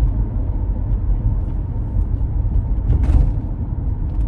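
Car driving, a steady low road and engine rumble heard from inside the cabin, with one brief louder noise about three seconds in.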